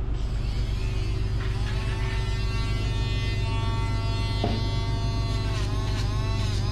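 Handheld rotary dog nail grinder running with a high whine, starting about a second and a half in. Its pitch dips again and again as it bites into the toenails, over a steady low hum.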